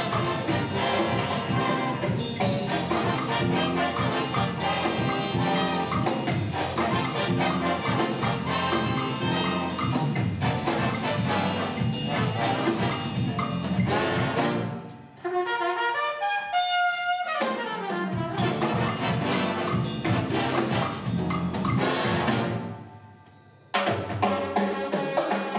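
Jazz big band playing a Latin-flavoured tune with the full brass section, drums and percussion. About halfway the band breaks off for a quick descending run of single notes, then comes back in. Near the end there is a short drop-out before the band re-enters together.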